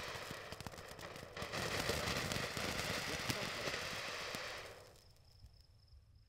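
Handheld sword-shaped fountain firework spraying sparks: a steady hiss with fine crackling. It fades out about four and a half seconds in.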